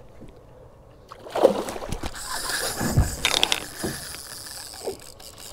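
Knocks and thuds of gear being handled aboard a small fishing boat, with a hissing, whirring mechanical sound from about two to four seconds in.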